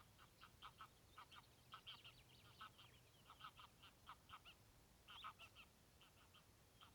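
Faint, distant waterfowl calling over the lake: a steady run of short, irregular calls, several a second.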